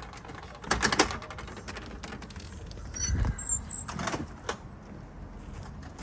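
A storm door being opened: clicks and rattles of its frame and latch about a second in, a dull thump about three seconds in, and a few more clicks near four seconds.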